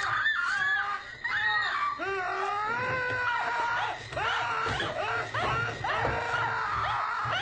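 A woman and a man screaming over and over, high-pitched cries that overlap and break off only briefly.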